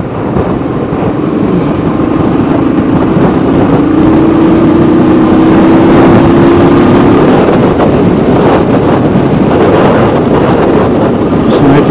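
Motorcycle engine pulling steadily past a car, its note rising slowly under heavy wind rush on the microphone; the note fades into the wind about two thirds of the way through.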